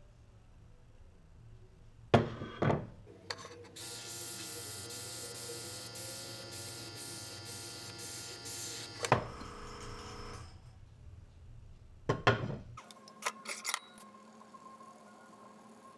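An airbrush spraying paint into an aluminum lure mold: a steady hiss over a held hum for about five seconds, with sharp clacks just before it. About twelve seconds in, a quick run of metal clacks and clicks as the aluminum mold halves are closed and clamped.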